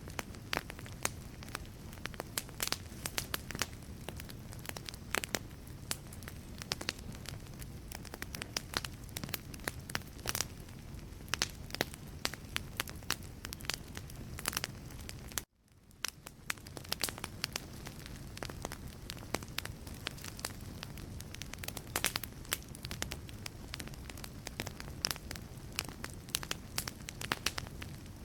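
Wood fire burning in a fireplace, with frequent sharp crackles and pops of the burning logs over a steady low rumble of flame. About fifteen seconds in, the sound cuts out for a moment and fades back in.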